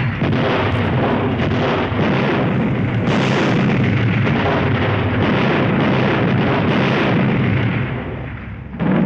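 Film sound effects of a wartime air-raid bombardment: a dense, unbroken barrage of explosions and artillery fire that eases about eight seconds in.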